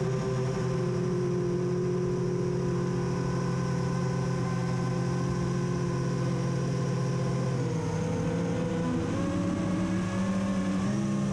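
Quadcopter's electric motors and propellers running with a steady whine, heard from a camera mounted on the drone. About eight seconds in the pitch drops and wavers as the throttle eases back, then rises again near the end.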